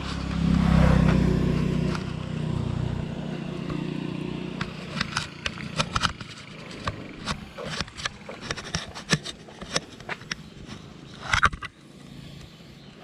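A motor vehicle passes, its engine hum swelling about a second in and fading away over the next few seconds. Scattered short clicks and knocks follow.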